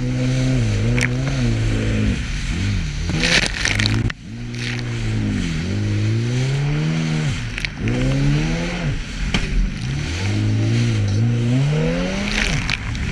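Personal watercraft engine revving up and down over and over as the craft rides across waves, with a hiss of spray and several sharp splashes as the hull hits the water. The engine drops away briefly about four seconds in, then picks up again.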